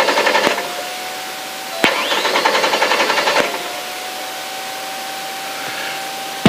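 Lada 2107 rally car's engine being cranked on the starter motor in two tries, a rhythmic churning that stops each time without the engine catching. The first try ends about half a second in and the second runs for about a second and a half, starting about two seconds in. The engine has died on the stage and the crew suspects the ignition lead.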